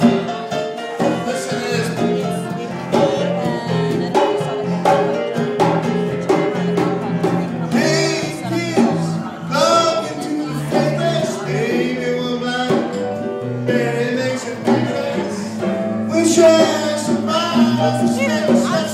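Live band playing a song, with guitar and a voice singing over a steady bass line.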